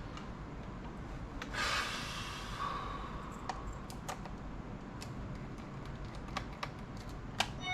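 Light plastic clicks and taps from handling a laptop's case and screws, with a short scraping rustle about two seconds in and a sharper click near the end.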